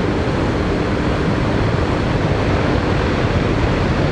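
Steady rushing of wind and heavy surf breaking at a big-wave break, with a faint steady hum under it that fades out about three seconds in.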